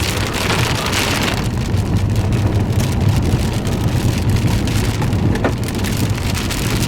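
Heavy rain pattering on a moving vehicle, many single drops ticking against it over the steady low rumble of the engine and road, heard from inside the cabin. A louder wash of rain hiss fills the first second or so, then eases.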